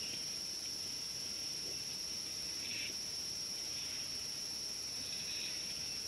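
Steady, high-pitched insect drone, with a few faint, brief chirps over it.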